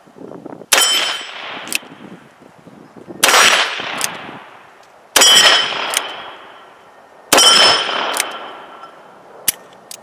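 Four 9mm revolver shots from a Ruger New Model Blackhawk with a 9mm conversion cylinder, fired slowly about two seconds apart. Each is a sharp crack followed by a long ringing, echoing tail. A few lighter metallic clicks come between and after the shots.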